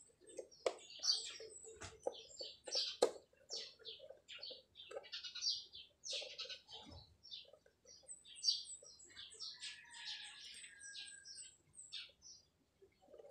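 Small birds chirping repeatedly in the background, with a short run of quick high notes near the end. A few sharp clicks and taps from hands handling wires on a control panel, the loudest about three seconds in.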